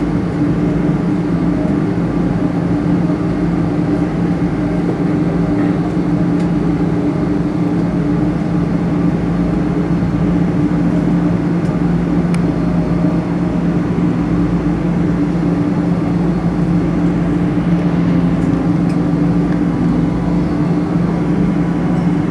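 Steady cabin drone of a Boeing 777-300 taxiing after landing: engine and air-conditioning noise, a constant hum with two steady low tones.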